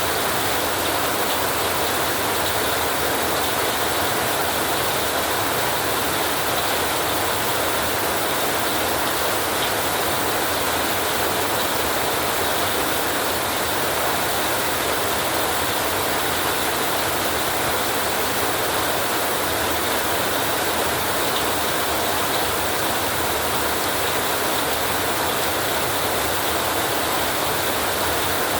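Steady heavy rain falling on a tin roof, an even hiss that does not change.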